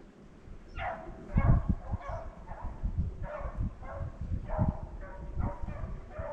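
Rabbit-hunting hounds baying on a rabbit's trail, calling about twice a second, with low thumps underneath.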